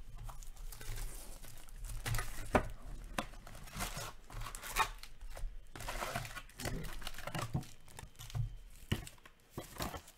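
Foil hockey card packs crinkling and rustling as they are handled and stacked by hand, with irregular light clicks and taps.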